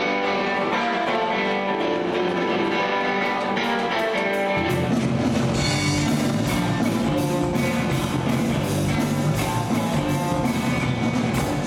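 Rock band playing live: an electric guitar intro, then bass and drum kit come in together about four and a half seconds in and the full band plays on.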